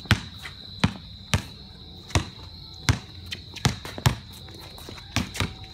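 A basketball dribbled on concrete, bouncing sharply at an uneven pace of roughly one bounce every half second to second.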